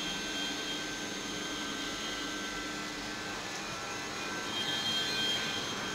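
CNC milling machine running: a steady whine made of several held tones over a hiss, swelling slightly about two-thirds of the way through.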